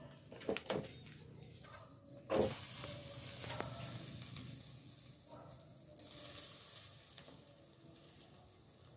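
Molten aluminium poured from a crucible into a termite nest packed in a bucket, sizzling and hissing as it meets the nest. A sharp knock comes a little over two seconds in, and the hiss then builds and slowly fades.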